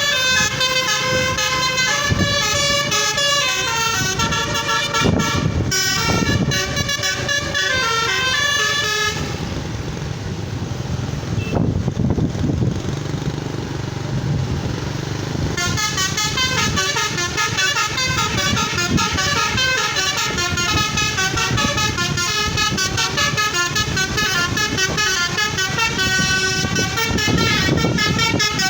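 Telolet multi-tone musical horn playing fast, stepping melodies. It breaks off for about six seconds in the middle, leaving a low rumble, then starts playing again.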